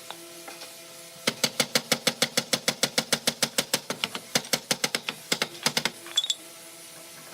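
A rapid, even run of sharp mechanical clicks or strikes, about eight a second, starting about a second in and stopping near six seconds.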